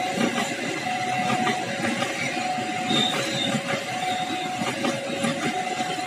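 KAI passenger coaches rolling past close by, their wheels clacking and rumbling over the rails. Over it, a level-crossing warning alarm sounds two alternating tones, switching roughly every 0.7 seconds.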